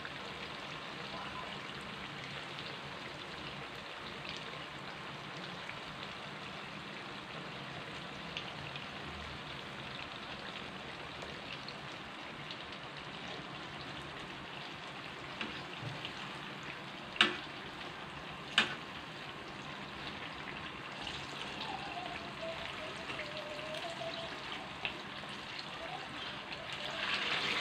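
Banana spring rolls (turon) deep-frying in hot oil in a wok, a steady sizzle. Two sharp clicks come a little past the middle. The sizzle grows louder near the end as tongs turn the rolls.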